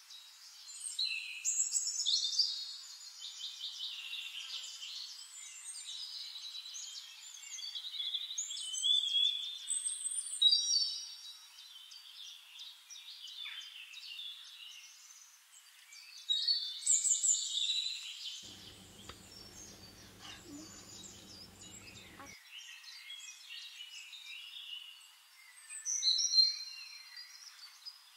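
Songbirds chirping and trilling, several high calls overlapping, with louder bursts of song now and then.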